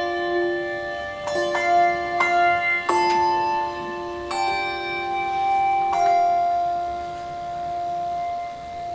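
Handbell choir playing: struck bell chords ringing on over each other, with a last chord about six seconds in left ringing and slowly fading.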